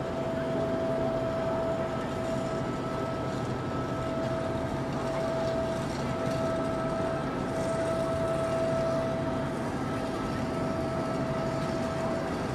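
Steady machine hum holding one constant tone over a wash of background noise.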